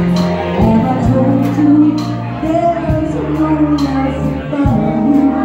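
Live band playing a song with electric guitar, keyboard and bass, with drum hits about once a second.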